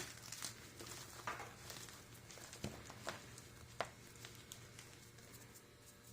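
Gym chalk crunching as it is crushed: irregular crisp crackles and short snaps, thinning out after about four seconds.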